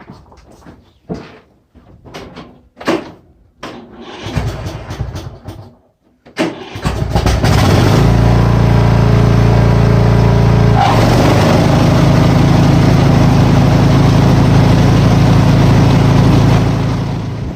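Cub Cadet XT1 lawn tractor engine being cranked and started: a couple of seconds of starter cranking, a short pause, then the engine catches and runs loud and steady. Its note drops slightly about eleven seconds in, and it fades out near the end. A few knocks and clatters come before the cranking.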